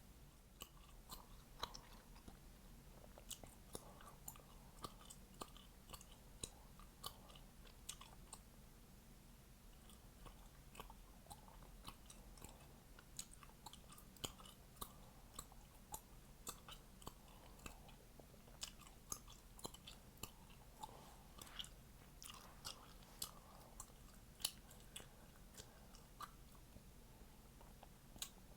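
Chewing gum being chewed close up, with frequent sharp snapping pops at an irregular pace of roughly one or two a second and soft wet mouth sounds between them.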